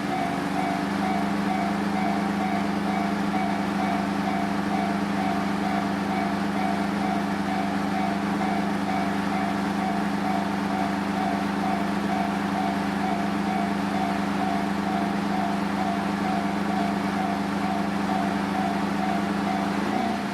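Japanese railway level-crossing alarm ringing, its electronic bell tone repeating quickly and evenly, over a steady low hum that stops near the end.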